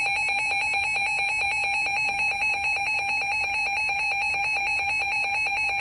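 Emergency alert attention signal on a NOAA Weather Radio broadcast: a loud, steady electronic alarm tone that cuts off near the end. It signals that a new warning is about to be read.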